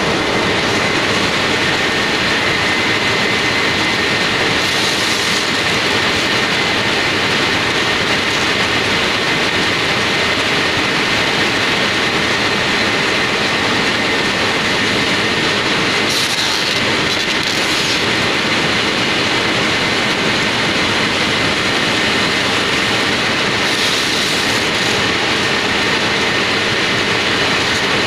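Industrial roller machine running steadily: a loud, even mechanical din with a faint steady whine, and a few brief hisses.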